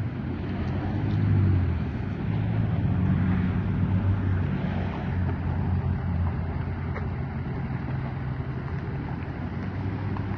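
Ford pickup truck's engine running steadily at low speed as it pulls a long, empty three-car trailer past.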